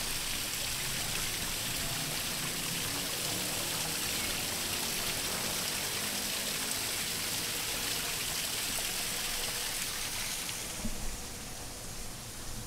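Water splashing and trickling down a small rock waterfall in an ornamental water feature: a steady rush that falls away about ten seconds in.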